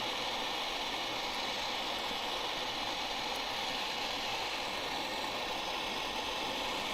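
Heat gun blowing a steady rush of hot air, warming the phone's screen adhesive so the glass can be pried off.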